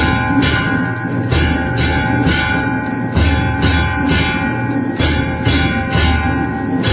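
Temple bells rung continuously during aarti, struck about twice a second over a sustained ring, with a low pulsing beat underneath.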